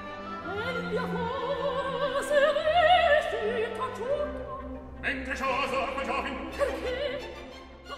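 Background music: operatic singing with a wide vibrato over an orchestral accompaniment.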